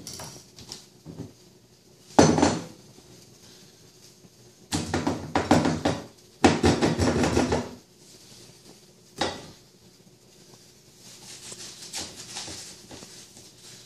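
Watermelon half and bowl being handled on a kitchen counter. A sharp clunk comes about two seconds in, then two spells of dense knocking and clatter, and a single knock later. Near the end there are softer repeated cuts of a knife through the melon flesh.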